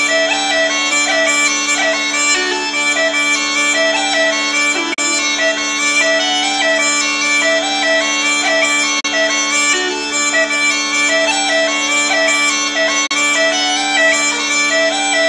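Uilleann pipes playing a tune: Ceol Pipes drones holding a steady chord under a handmade four-keyed chanter's running melody.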